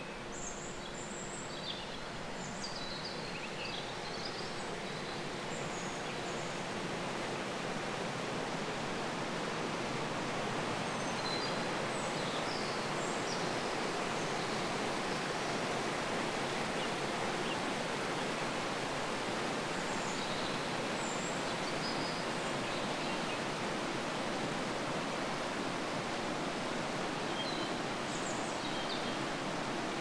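Rushing water of a mountain waterfall and stream: a steady hiss that grows louder over the first ten seconds or so, then holds. Birds chirp briefly now and then above it.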